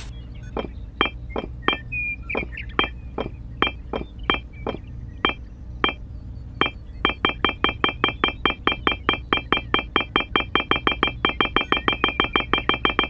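Miniature clay bricks clinking as they are set down on one another, each clink short and ringing. The clinks are spaced unevenly at first, then from about halfway in they speed up to a rapid, even run of about five a second.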